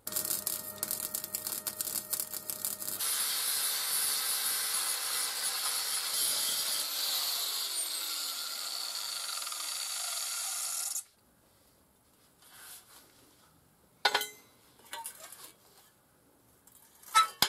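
MIG welding a steel L-bracket onto the sheet bender's angle iron: about three seconds of crackling, then a steady hiss for about eight seconds that cuts off suddenly. Two sharp metal knocks follow near the end.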